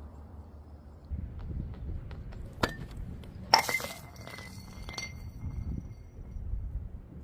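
A few sharp glassy clinks over a low rumble. The loudest comes about three and a half seconds in and leaves a high ringing tone for about two seconds.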